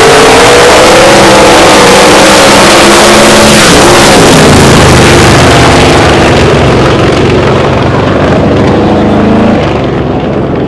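Two outlaw drag cars, one a second-generation Camaro, launching side by side and running a pass at full throttle, engines very loud. The sound shifts about four seconds in and drops near the end as the cars lift off down the track.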